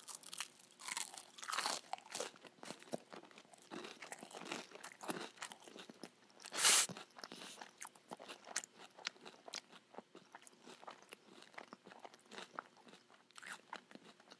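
Close-up crunching and chewing of a bite of Jollibee peach mango pie with its fried crust: many small crackles from the mouth, with one louder burst about halfway through.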